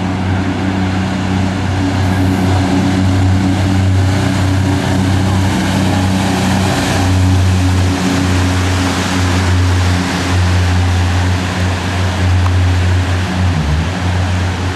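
A 500 hp jet boat running at speed: a steady low engine drone under a loud rushing hiss of water spray and wind, with a brief dip in the engine note near the end.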